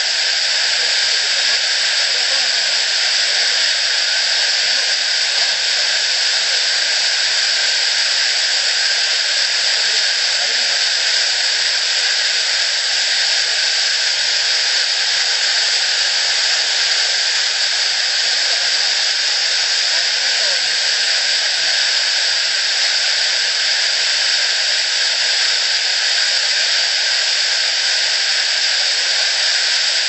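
Waterfall and the rocky stream below it rushing: a steady, unchanging hiss of falling water with little low end.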